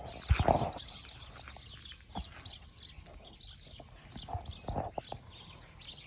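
Small songbirds chirping and twittering, many short high calls overlapping one another, with a few low thumps, the loudest about half a second in.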